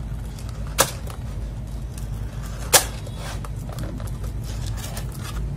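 Two sharp plastic clicks about two seconds apart, with a few faint ticks and rustles between, as a small plastic box is opened, over a steady low hum.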